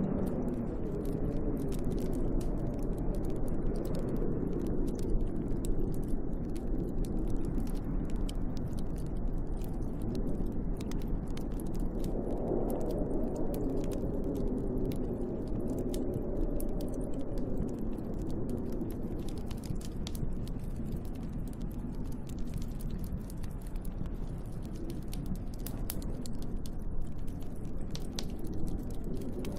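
Storm wind howling, rising and falling in pitch, with a wood fire crackling and popping in a fireplace.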